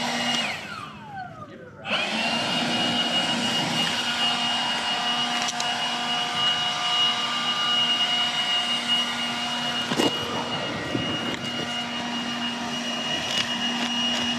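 Steady machine drone with a constant high whine. About half a second in, its pitch falls and it drops away. Near two seconds it cuts back in abruptly and runs on, with a single sharp click about ten seconds in.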